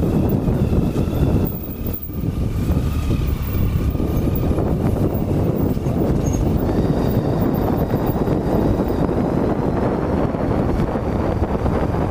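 Triumph Tiger 800 XCx's three-cylinder engine running under way on a rough dirt track, mixed with wind rushing over the helmet-mounted microphone. The sound eases off briefly about two seconds in, then runs on steadily.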